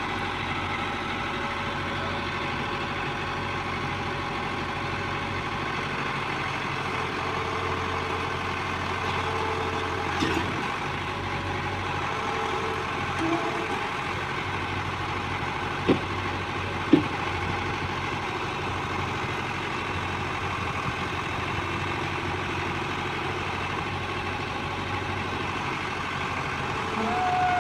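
Heavy diesel engine idling steadily, with two short sharp knocks about a second apart near the middle.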